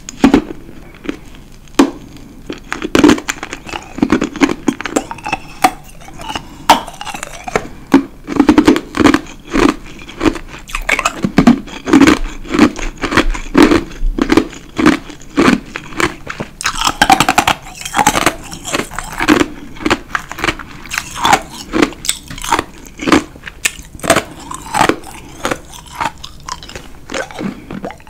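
A person chewing ice with the mouth closed: a steady run of crisp crunches, several a second.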